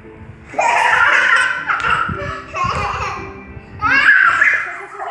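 A young child laughing and squealing in two high-pitched outbursts: a longer one starting about half a second in and a shorter one about four seconds in.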